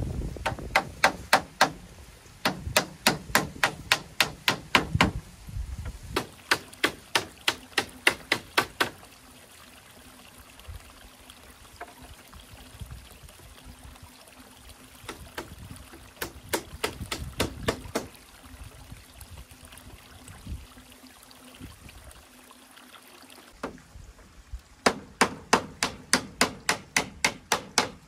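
Repeated sharp blows of a hand tool on dried bamboo, in runs of about four strikes a second with quieter pauses between the runs.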